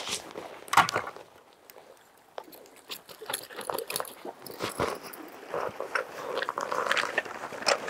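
Spinning reel being wound in irregular spurts as a metal jig is worked, with sharp clicks and rustle from gloved hands and gear; the handling noise is densest near the end.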